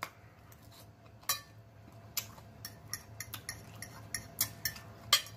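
Eating sounds: a metal fork clicking and clinking against a dinner plate, with chewing and mouth clicks, in scattered short ticks. A few sharper clinks come about a second in and near the end.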